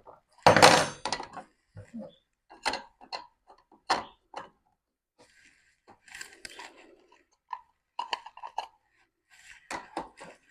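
Hard plastic parts of a Nespresso Lattissima One coffee machine being handled and fitted together: a loud knock about half a second in, then a string of lighter clicks and taps.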